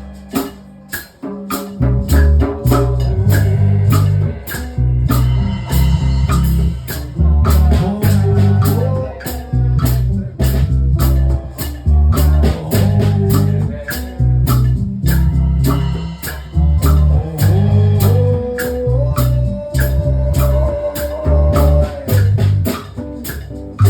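Live band playing a reggae-style song: bass guitar, drum kit with steady cymbal ticks, and guitar, with a held melody line above. The music drops briefly about a second in, then comes back at full level.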